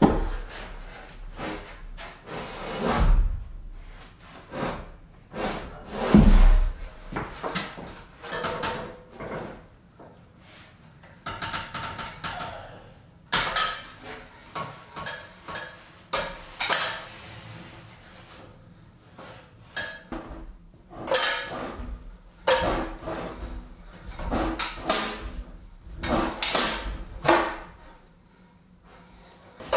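Irregular knocks, clanks and rustling from someone working on an aluminium stepladder among timber beams, with two heavy thuds within the first few seconds.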